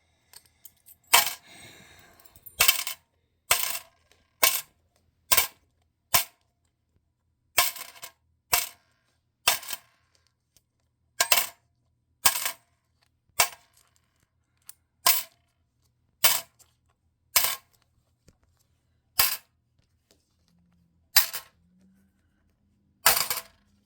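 Coins dropped one at a time into a claw machine's coin changer hopper: sharp metallic clinks, about eighteen of them roughly a second apart. A faint low hum runs underneath.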